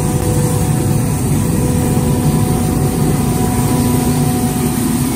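Street sweeper truck running as it sweeps leaves along the curb: a steady heavy drone with several held tones, a lower tone joining about two seconds in.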